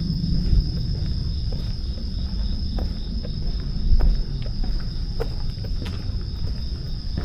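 Night insects keep up a steady, continuous high-pitched trill. Underneath is a low rumble with scattered light clicks, and a bump about four seconds in.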